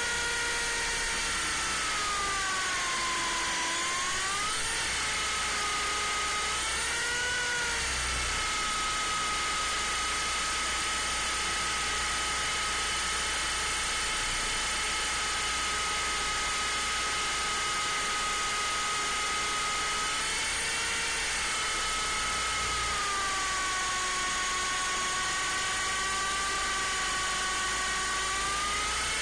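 Electric motor and rotor of an MJX F45 RC helicopter, heard through its own belly-mounted camera: a steady high whine that falls and rises in pitch with motor speed, dipping a few seconds in, holding steady through the middle, and dropping lower again after about twenty seconds before rising near the end.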